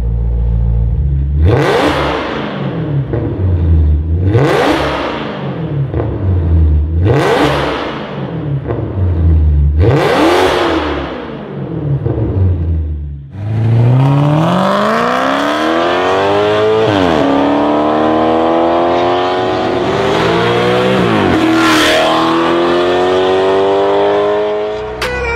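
Maserati GranTurismo V8 with a Fi Exhaust catless downpipe and valved exhaust, valves open. First it idles and is blipped four times, about three seconds apart, each rev climbing and falling straight back. After a brief break about 13 seconds in, the car accelerates hard, the engine note climbing and dropping back at two upshifts.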